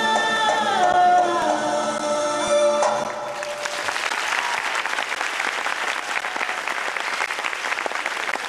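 A song with singing plays and ends about three seconds in. An audience then applauds steadily.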